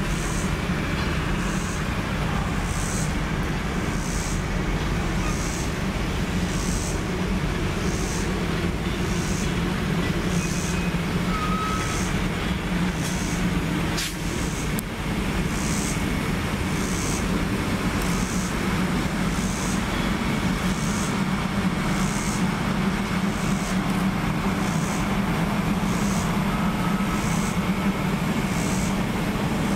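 Train of passenger cars rolling past: a steady rumble of steel wheels on the rails, with one short sharp click about 14 seconds in.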